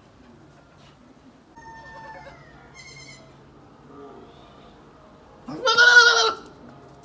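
Goat bleating: one loud, wavering call lasting about a second near the end, with fainter calls a few seconds earlier.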